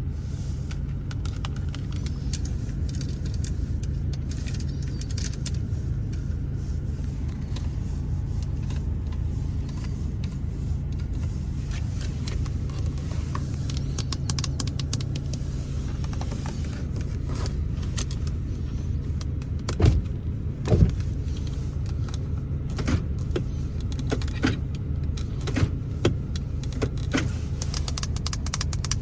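Fingers tapping and clicking on the interior surfaces of a Ford Focus, scattered light taps with two louder knocks about two-thirds of the way in, over a steady low rumble.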